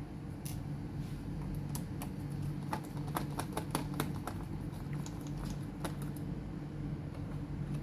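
Small sharp clicks and taps of hands working on a laptop's case, thickest about three to four seconds in, over a steady low hum.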